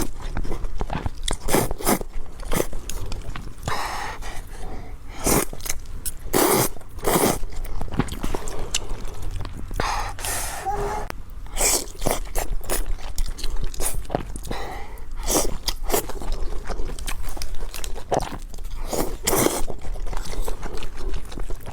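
Close-miked eating: irregular crisp crunching bites and chewing of food, many short crunches a second.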